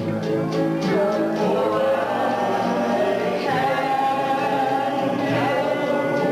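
A man singing into a handheld microphone over backing music, holding long notes.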